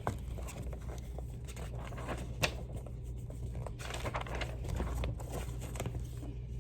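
Light rustling and small clicks of a paper picture book being handled and opened, with one sharper click about two and a half seconds in.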